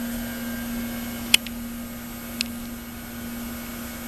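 Antique Hendey metal lathe running with a steady motor hum, with two sharp clicks about a second apart, the first louder.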